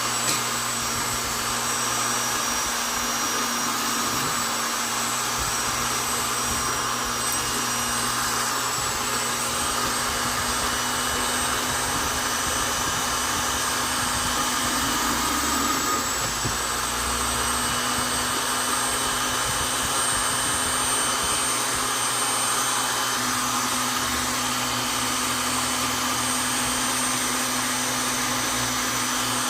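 Vonder electric drill running continuously at a steady speed, with a high motor whine that dips briefly about halfway through.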